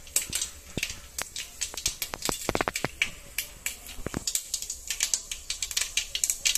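Mustard seeds popping and crackling in hot sesame oil in a steel pot: sharp, irregular pops several times a second, with a thicker run of them about two and a half seconds in.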